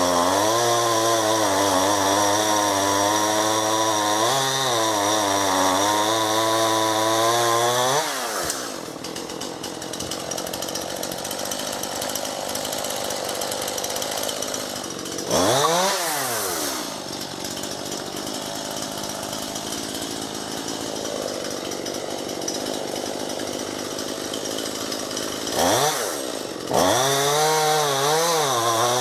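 Two-stroke chainsaw cutting a fallen ash branch at full throttle, the engine note wavering as it works. About eight seconds in it drops back to idle, blips once briefly near the middle, then revs up high again near the end.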